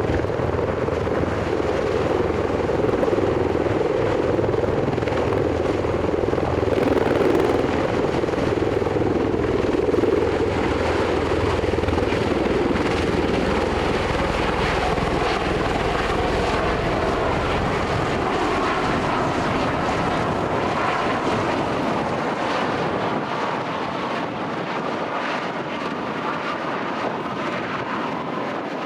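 Aircraft engines and propellers running close by: a steady, loud drone that thins out and eases slightly in the last few seconds.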